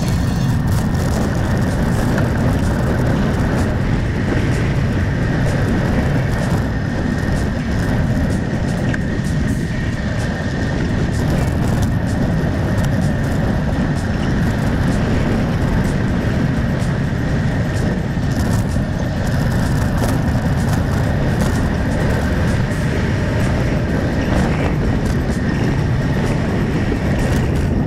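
Steady, loud wind rush buffeting the microphone of a handlebar-mounted camera on a road bike descending at speed.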